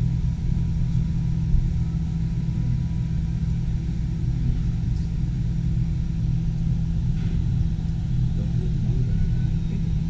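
Steady low rumble and hum inside an enclosed gondola of the Centennial Wheel as the wheel turns.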